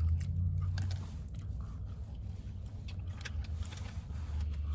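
A person biting into and chewing crispy fried chicken close to the microphone: scattered short crunchy clicks over the low steady hum of the car.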